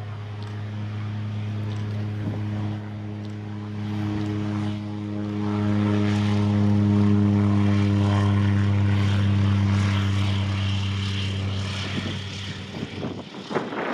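Antonov An-2 biplane's nine-cylinder radial engine and propeller at full power on the take-off run, a steady deep drone that grows loud as it passes close by, then fades as the aircraft lifts off near the end.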